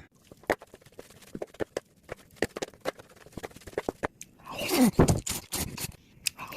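Close-up chewing and mouth sounds of someone eating, a quick run of small wet clicks and smacks. About four and a half seconds in comes a louder stretch with a falling voiced tone over the chewing.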